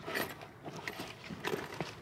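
A few irregular clicks and knocks from a baitcasting fishing reel and rod being handled.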